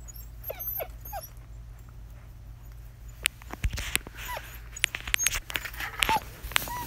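Six-week-old German Shepherd puppies giving short high whines and yips, a few at first and more later, with scattered sharp clicks and knocks from about three seconds in.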